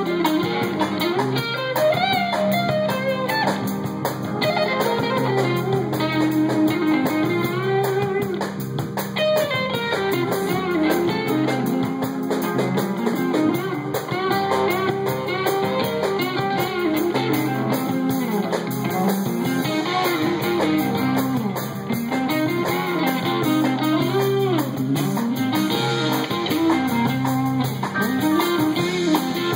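Live blues band playing: an electric guitar plays lead lines with bending notes over a drum kit.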